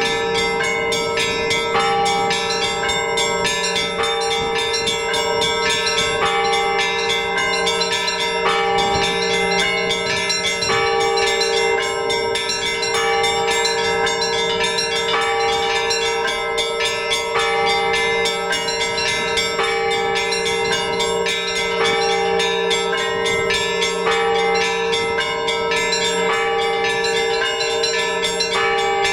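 Orthodox church bells rung together from a belfry: small bells struck rapidly over the steady, lingering tones of larger bells, with no pause.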